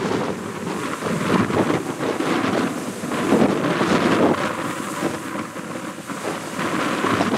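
Rough sea surf breaking and churning against rocky cliffs, swelling and falling back in surges, with gusty wind buffeting the microphone.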